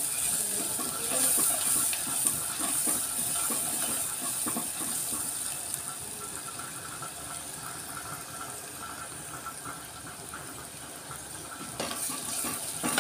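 Chopped onions, curry leaves and green chillies sizzling in hot oil in a pot, with a metal spoon stirring them at the start and again near the end. The sizzle dies down gradually through the middle.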